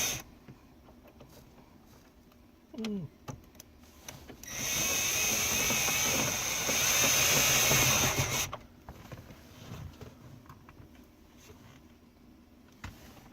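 Cordless drill-driver running for about four seconds, starting about four seconds in, driving the Torx screws that hold the aftermarket head unit in the dash. Scattered light clicks of handling parts around it.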